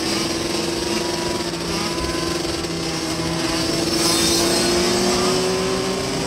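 Dirt bike engines running steadily at speed, one engine's note holding and slowly rising in pitch. A rush of hiss under it gets louder about four seconds in.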